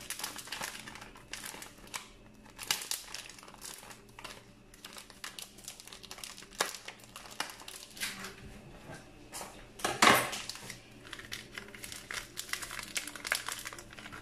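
Plastic crinkling and rustling from a wrapped biscuit packet handled in disposable plastic gloves: irregular small crackles, with one louder crackle about ten seconds in.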